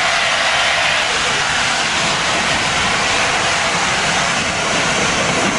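Steam hissing steadily from LNER A4 Pacific locomotive No. 60007, a loud, even rush with no exhaust beats.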